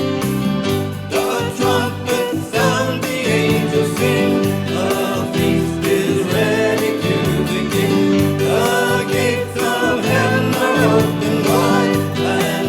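A small church choir singing a hymn over sustained keyboard or organ chords. The voices come in about a second in.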